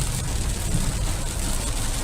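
Heavy rain in strong wind: a steady hiss of rain with a low rumble of wind.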